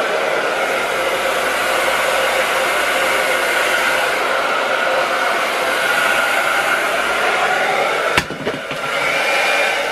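Hair dryer blowing steadily, with a sharp knock about eight seconds in and a brief drop in level before it runs on.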